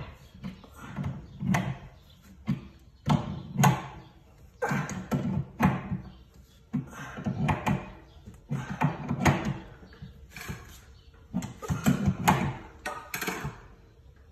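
Wrenches knocking and scraping against a water heater supply-line fitting as it is tightened, with a backup wrench holding the other side: a long run of uneven metallic knocks.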